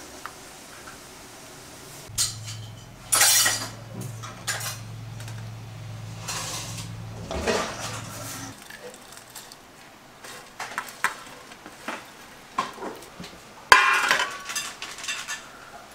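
Stainless steel bowls, plates and utensils clinking and clattering as they are handled and set down, with the loudest knocks about three seconds in and near the end. A low steady hum runs underneath for several seconds in the first half, then stops.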